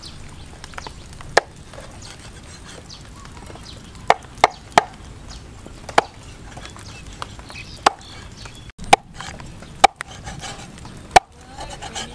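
Steel cleaver chopping eels into pieces on a wooden chopping block. About ten sharp chops come at uneven intervals, with a quick run of three about four seconds in.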